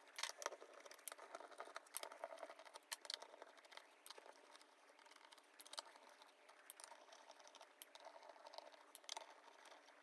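Near silence with faint scattered clicks and ticks: a Phillips screwdriver working the small screws out of the aluminium bottom case of a 13-inch mid-2012 MacBook Pro.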